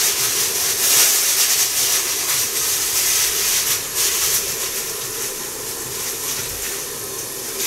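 Pumpkin, onion and carrot cooking in a covered frying pan with a little water: a steady sizzle and hiss of frying and steam, with a fine crackle throughout.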